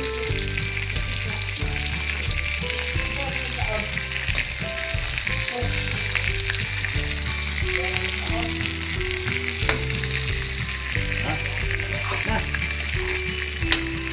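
Noodles and cabbage sizzling steadily as they are stir-fried in a metal wok, with a spatula scraping and clicking against the pan and one louder knock near the end. Quiet background music plays underneath.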